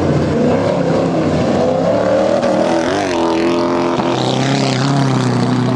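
Autocross race cars' engines revving hard as they slide through a dirt hairpin. The pitch dips and rises about halfway through, then an engine holds a steady high note near the end.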